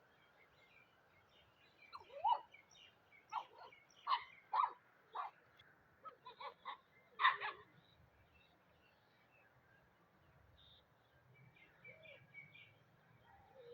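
A quick run of about a dozen short, sharp animal yelps or squawks between about two and eight seconds in, with a few fainter calls near the end.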